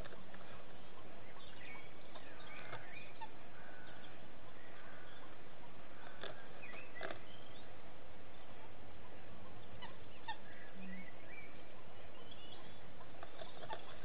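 Steady hiss of a nest-box camera microphone, with faint short bird chirps scattered through it and a few sharp scratches and knocks as a barn owl tears at a starling on the nest litter.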